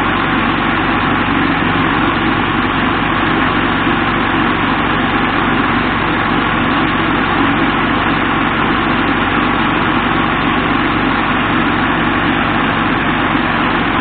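Vibratory tumbler running: deburring media rattling steadily in the bowl over a low motor hum, as it deburrs welded steel parts.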